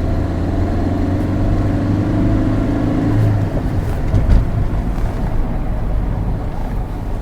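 Car brakes giving a low, steady 'burr' drone while the car slows, stopping about three and a half seconds in, followed by a single thump. The noise comes from the drum brakes: the drums' facing is worn uneven and the brake shoes are worn up and down.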